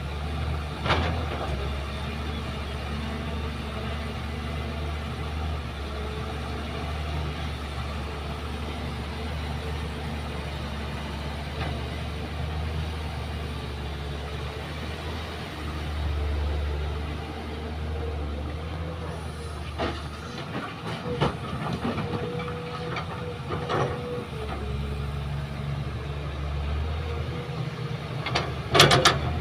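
Diesel engines of a Kobelco hydraulic excavator and a dump truck running with a steady low drone that swells in places as the excavator works, with a steady whine through the second half. Several sharp knocks near the end as the excavator's bucket digs into the earth bank.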